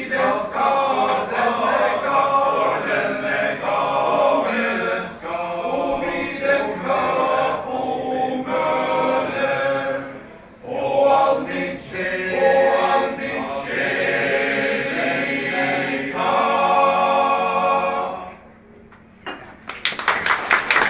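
Male voice choir singing a cappella in several parts, holding a final chord that ends about 18 seconds in. After a short pause the audience breaks into applause near the end.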